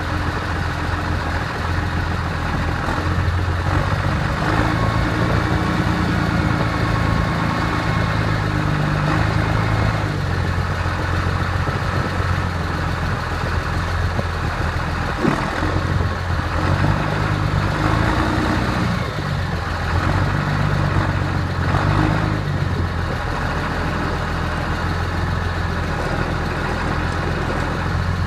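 Massey Ferguson 6499 tractor's six-cylinder diesel engine running, heard from inside the cab as the tractor drives slowly, its revs rising and falling twice. A brief knock about halfway through.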